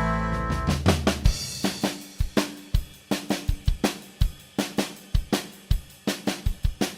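Background music: a sustained chord rings out and fades over the first second or so, then a drum kit plays a steady beat of kick, snare and cymbals.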